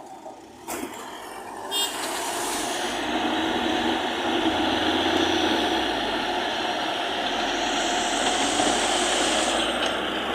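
Heavy construction vehicle's diesel engine working under load. It grows loud about two seconds in and then runs steadily.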